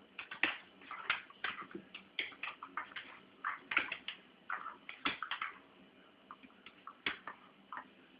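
A dog and a cat scuffling together: a quick, irregular string of clicks and scrabbling, mixed with short squeaky whines.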